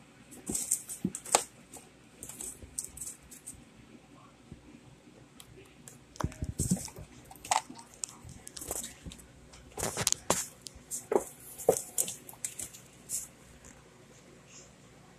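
Kittens scrabbling at an empty cardboard soda carton, claws scratching and the box rustling and scraping on carpet in irregular bursts of clicks.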